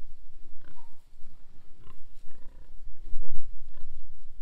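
Piglets grunting while feeding, a handful of short calls scattered through the few seconds.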